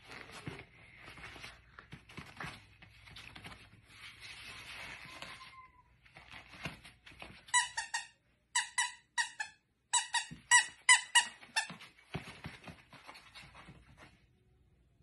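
Squeaky dog toy squeaking in about eight quick bursts of short, high squeaks, starting about halfway through, as a puppy plays with it; soft rustling and shuffling before the squeaks.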